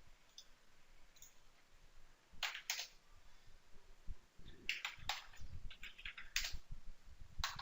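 Scattered clicks of a computer mouse and keyboard, faint, several coming in quick pairs.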